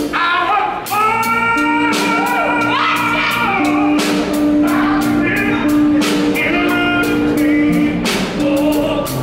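Small street band playing: an electric guitar melody with sliding, bending notes over steady snare drum and cymbal hits.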